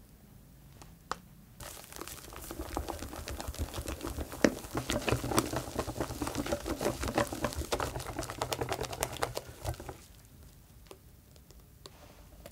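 Wire balloon whisk beating chocolate batter and meringue in a glass bowl: fast, dense clicking and scraping of the wire against the glass, starting about two seconds in and stopping after about eight seconds.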